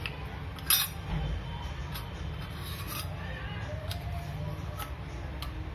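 Small stainless steel kitchen utensils, a cup and spoon, clinking and scraping together as a toddler handles them: a sharp clink about a second in, then lighter taps roughly once a second, over a steady low background rumble.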